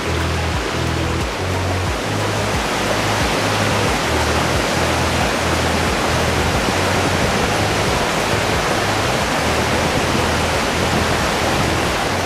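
Background music with a moving bass line, mixed with a steady rushing noise.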